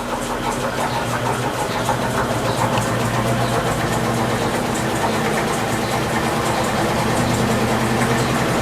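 Electrolux LT15F washing machine in its spin cycle with an unbalanced load, running with a steady hum that builds slightly. The drain hose is padded with foam against the cabinet, which had been the cause of the loud spin noise.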